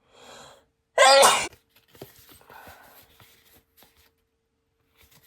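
A person sneezes about a second in, after a short intake of breath, followed by faint rustling and clicking of trading cards being handled.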